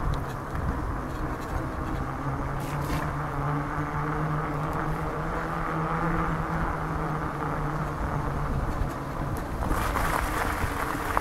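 Fat-tyre bicycle rolling along a wet paved road: a steady buzzing hum under a rush of tyre and wind noise, the hum fading near the end.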